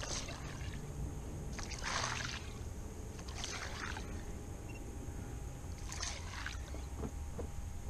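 A hooked fish splashing and thrashing at the surface on the line beside the kayak, in four short splashy bursts.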